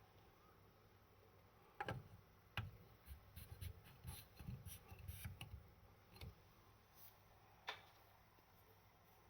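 Small hard parts being handled: sharp clicks about two seconds in, a quick run of light taps and knocks over the next few seconds, and a last single click near the end, over faint room tone.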